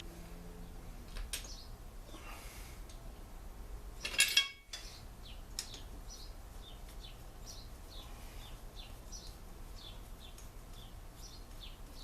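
A short metallic clatter of engine parts being handled about four seconds in, then a bird chirping over and over, short high falling chirps a few per second.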